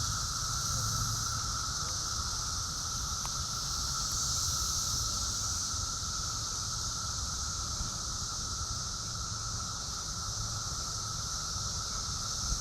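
Cicadas singing in a steady chorus: a continuous, unchanging buzz with a high band and a lower hum, over a low rumble.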